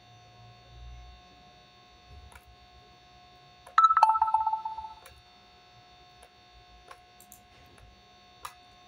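A two-note chime, a higher note followed by a lower one, sounds about four seconds in and rings out for about a second. Underneath are a steady faint electrical hum and a few faint clicks.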